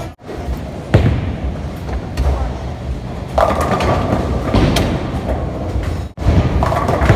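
Bowling ball thudding onto the lane about a second in, rolling, then crashing into the pins a few seconds later, with the clatter of pins over the alley's background noise.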